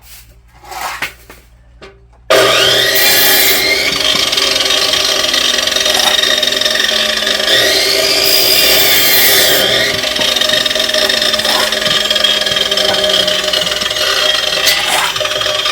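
Loud, steady running of powered wood-working machinery that starts abruptly about two seconds in, its pitch rising and falling as it works. Before it come a few light knocks.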